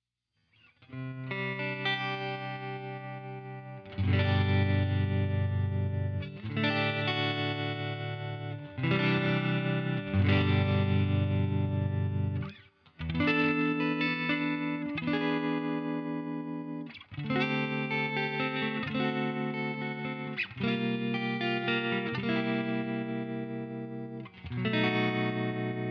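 Fender Stratocaster electric guitar played through a UAFX Dream 65 Reverb amp emulator, chords struck about every one to three seconds and left to ring and fade. The playing starts just under a second in.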